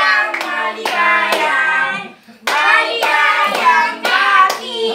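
A family group, children's voices prominent, singing a birthday song together while clapping their hands on the beat, with a short break between lines about two seconds in.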